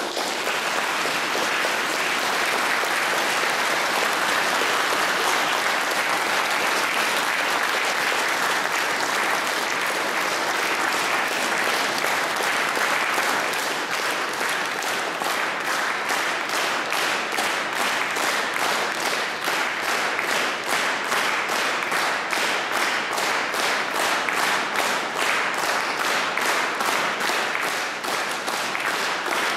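A church audience applauding, a dense sustained clapping that over the second half settles into rhythmic clapping in unison.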